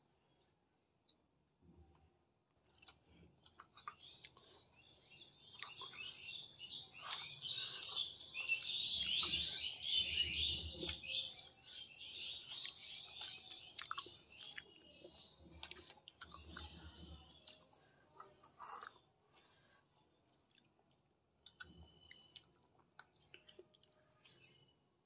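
A boy chewing and biting into fried chicken, soft wet mouth clicks and smacks, with birds chirping for several seconds in the middle.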